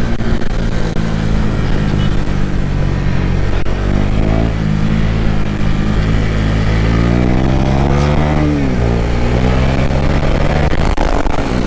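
Motorcycle engine running steadily at low revs, with the revs rising and falling briefly twice, the second time about eight seconds in.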